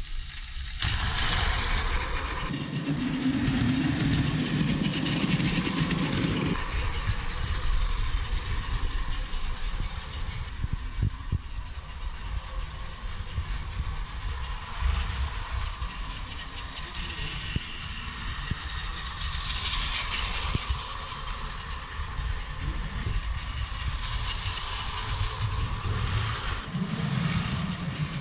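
Battery-powered Plarail toy trains running on plastic track: a steady whirring of the small motors and gears, with a lower hum that swells a few seconds in and again near the end, and a few faint clicks.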